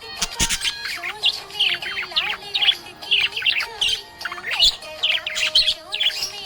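Budgerigar chirping and warbling: a fast, continuous run of short high chirps.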